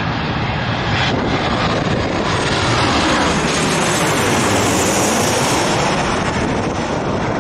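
Boeing 737 jet airliner passing low overhead on landing approach with gear down: a steady jet engine rush that swells as it comes over, with a high whine that falls in pitch as it passes.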